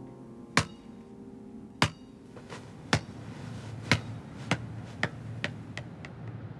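A ball bouncing on pavement, coming to rest. The first bounces are about a second apart, then they come quicker and weaker, ending in a short patter.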